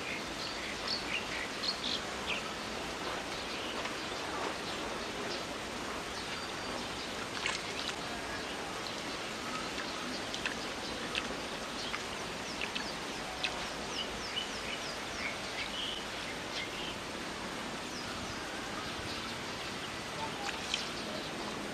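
Steady outdoor background noise with scattered short, high chirps of small birds.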